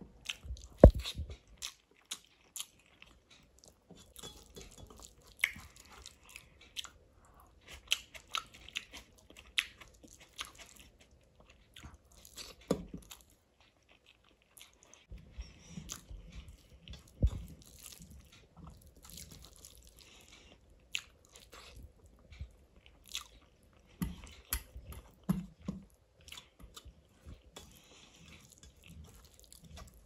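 A person chewing and eating rice and chole by hand, with irregular wet smacks and clicks of the mouth and a short pause about halfway.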